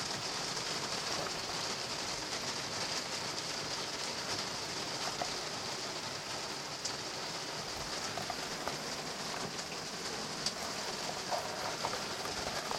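Steady, even hiss of water, with a few faint ticks.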